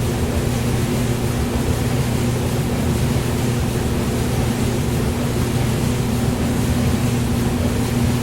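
Hair dryer running steadily: an even rush of air over a low, constant motor hum, with no change in speed.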